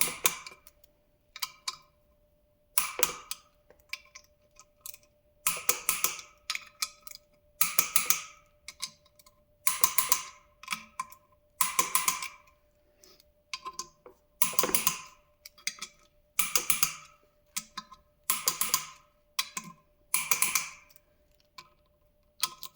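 Ratchet wrench clicking in short runs on repeated back-strokes, about one run every two seconds, while intake bolts on a Duramax LB7 engine are tightened.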